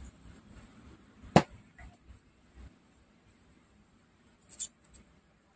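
Quiet soldering work on a circuit board: one sharp tap about a second and a half in, a fainter tick just after, and a few light clicks near the end, over a faint steady high-pitched whine.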